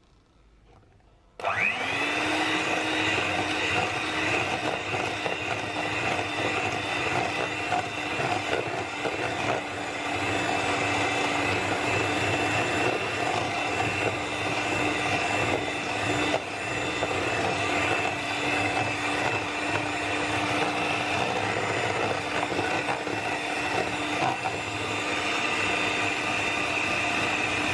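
Electric hand mixer switched on about a second and a half in, its motor whine rising as it spins up and then running steadily as the beaters whisk egg yolks with sugar.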